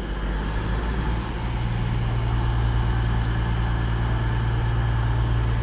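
Diesel engines of a CrossCountry Class 220 Voyager multiple unit, a steady low drone that swells and settles onto a stronger pitch about a second in as the train departs.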